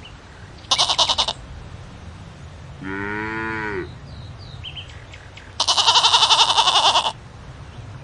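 Farm-animal sound effects: a sheep bleats briefly with a fast quavering flutter, a cow gives a short, quieter moo about three seconds in, and a sheep bleats again, longer and louder, near the end.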